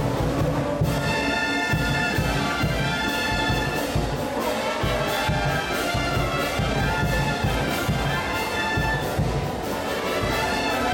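A Peruvian festival brass band playing a tune, with horns holding chords over a steady, regular drum beat.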